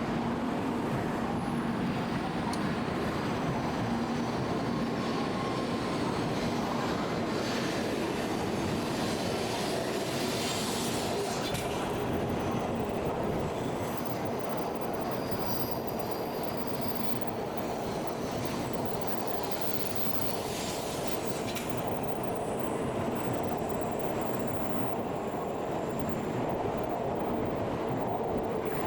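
Tokaido Shinkansen train moving through the platform, a steady rumble with faint high-pitched wheel squeal now and then.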